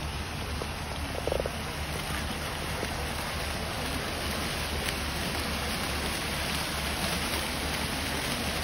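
Fountain jets splashing steadily into a stone basin, a continuous rushing of falling water, with one brief pitched sound about a second in.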